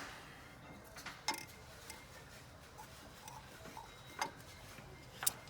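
A few scattered light metallic clicks and clinks as a connecting-rod cap and its bearing shells are worked loose and taken out by hand. The sharpest click comes near the end.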